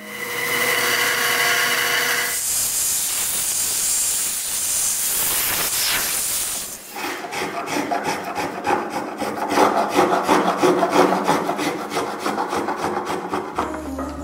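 A small hand edge tool scraping and shaving a walnut chair part: a steady scraping rush for about the first half, then quick repeated strokes, about three or four a second.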